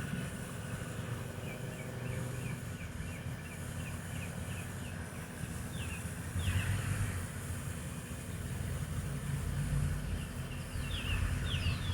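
Trane heat pump outdoor unit running with a low hum, while a small bird chirps in quick runs of short falling notes, with a few higher chirps about halfway and near the end.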